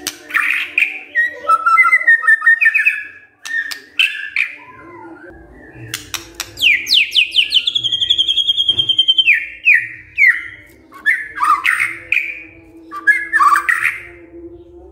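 White-rumped shama singing a varied song of loud whistled phrases and sharp clicks, with a long, fast trill of rapidly repeated notes near the middle.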